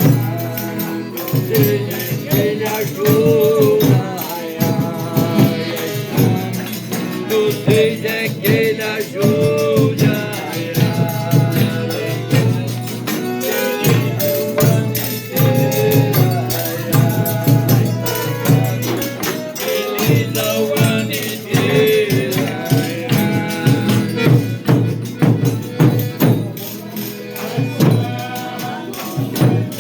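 Folia de Reis folk ensemble: voices singing a drawn-out devotional chant over a steadily shaken and beaten tambourine.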